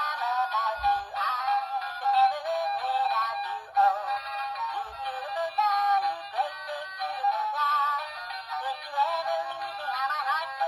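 Dan Dee animated plush cat toy playing its built-in song with a sung voice through its tiny speaker. The sound is thin and tinny, with no bass.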